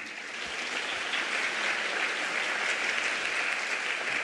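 Audience in a large auditorium applauding steadily, the applause that closes a talk.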